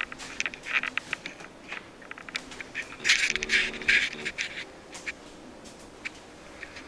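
Scattered scratchy clicks and rustles, loudest about three to four seconds in: handling noise from a handheld camera being moved around.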